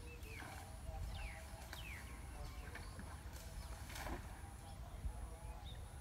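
Outdoor ambience of insects and birds: a high, thin insect buzz pulsing on and off about twice a second, a few short bird calls sliding down in pitch, and a low rumble underneath. There is one sharp click about four seconds in.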